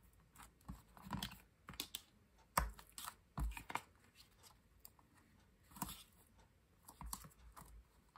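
Double-sided tape being pulled off its roll, torn into strips and pressed down onto cardstock by hand: irregular light clicks and taps with short tearing sounds.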